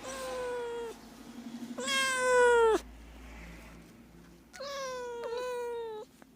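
Domestic cat meowing: four drawn-out meows, each falling slightly in pitch. The loudest comes about two seconds in, just after a brief rapid pulsing, and the last two run together near the end.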